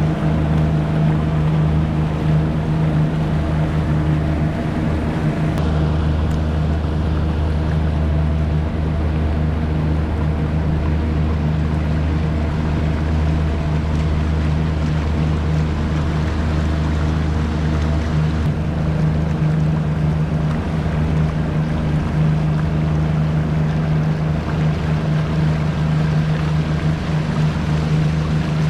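Outboard motor of a small open passenger boat running at a steady cruising speed, a constant low drone, with water rushing past the hull and churning in the wake.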